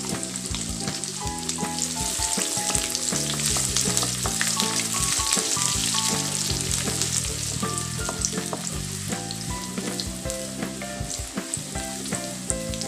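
Chopped garlic, whole cumin seeds and dried red chillies sizzling and crackling in hot oil in a kadai, stirred with a wooden spatula. A tune runs underneath in the background.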